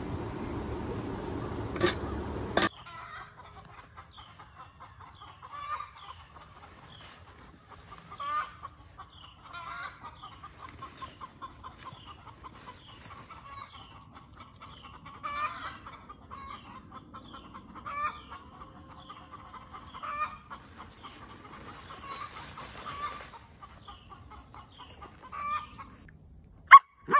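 Chickens clucking: a long run of short, quick calls with louder clucks every couple of seconds. It opens with a steady rushing noise that ends in two clicks, and a sharp, loud click comes near the end.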